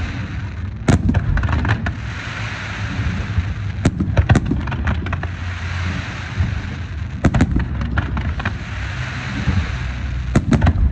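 Aerial fireworks bursting at irregular intervals: a sharp bang about a second in, two near four seconds, a pair around seven seconds and a cluster near the end, over a steady rushing background.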